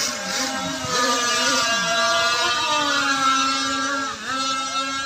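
Radio-controlled model racing boats running at speed on the water, several motors whining at once and shifting in pitch; about four seconds in one drops sharply in pitch and climbs again.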